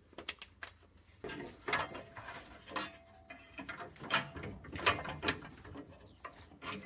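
A steel bracket clinking and knocking against the car's underbody as it is offered up by hand. The sound comes as a run of irregular clicks and light metallic rattles.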